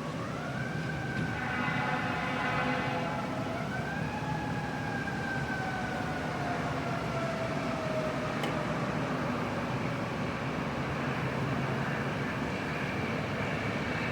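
Fire engine siren wailing over steady city traffic noise. It rises near the start and again about four seconds in, then slowly falls away. A horn blast sounds about two seconds in.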